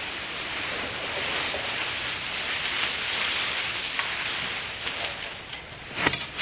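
Dry fallen leaves pouring and rustling out of an upturned tub into a galvanized metal trash can, a steady rush of noise, with a few sharp knocks near the end.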